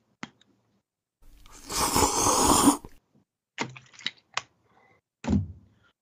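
A man exhales long and heavily into a close microphone, then a few sharp clicks and a short low grunt.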